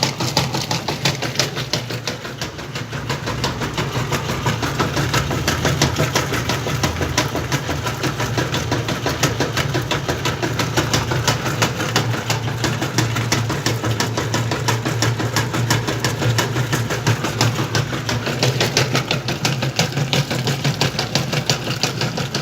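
Whirlpool washing machine running its wash cycle with a load of jeans: a steady motor hum with a rapid, even pulsing, dipping slightly about two seconds in.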